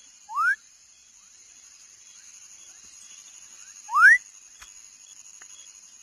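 Frog calling twice, about three and a half seconds apart: each call is a short whistle sweeping upward in pitch, the second one louder. A steady high-pitched drone of night insects runs underneath.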